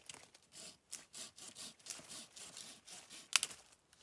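A hand blade cutting into a dry stick in quick, repeated strokes, about three a second, with one sharper, louder stroke near the end: kindling being prepared.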